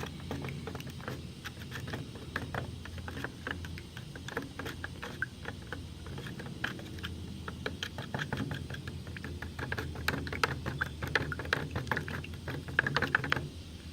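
Clear coat with hardener being stirred in a mixing cup: quick, irregular clicks and taps of the stirring stick against the cup, over a steady low hum.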